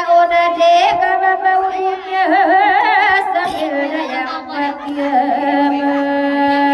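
A singing voice with a slow, heavily ornamented melody and a wavering vibrato over a steady accompaniment, settling into long held notes in the second half.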